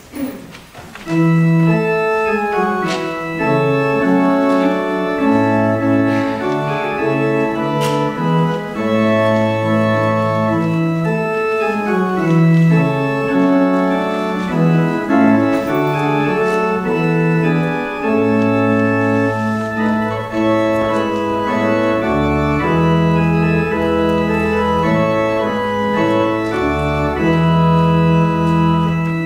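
Church pipe organ playing a postlude of sustained chords, starting about a second in. Deeper bass notes join in the last third.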